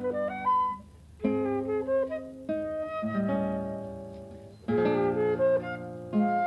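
Classical guitar playing chords and arpeggios, each chord left to ring and fade away. There is a brief lull just before the first chord, about a second in.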